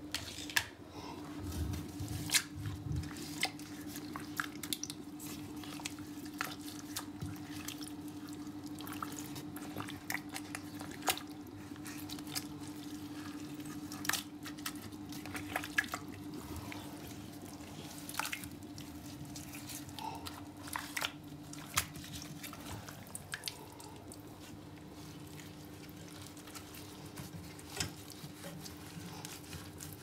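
Scattered drips and small wet clicks as a soaked cloth is handled and wrapped around the base of a sink faucet to treat mineral buildup. A steady low hum runs underneath and fades out about three quarters of the way through.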